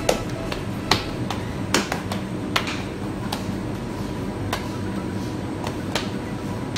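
Sharp pats and slaps of a baker's hands pressing and dimpling rounds of pide dough on a floured granite counter, irregular, roughly one a second, over a steady low hum.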